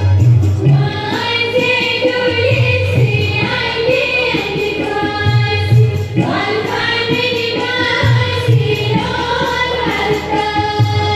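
Women singing a Kashmiri roff folk song together, with a low drum beating in short groups every couple of seconds.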